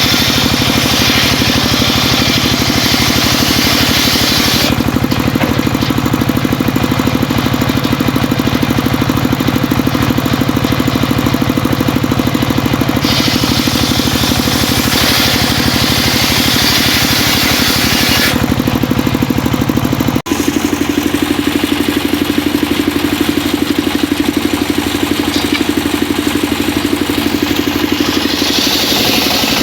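Homemade engine-driven circular saw rig running steadily while ripping mahogany. A bright, hissing whine rises over the steady engine hum in stretches as the blade bites into the wood, with quieter runs in between. There is a brief dropout about two-thirds of the way through.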